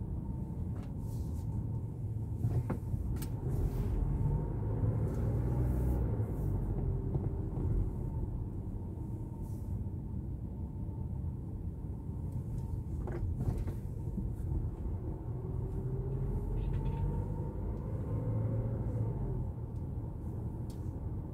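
Car driving slowly on residential streets, heard from inside the cabin: a steady low road and engine rumble, with a faint whine that rises and falls twice as the car speeds up and slows. Two sharp clicks or knocks come through, about 3 s and 13 s in.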